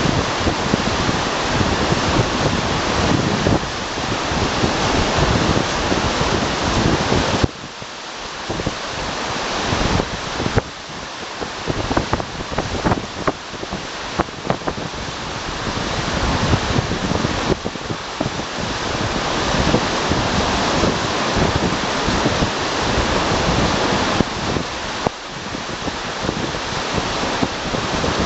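Loud rushing of river water and rain, with many small splashes. The rush drops suddenly about seven and a half seconds in, then builds back up.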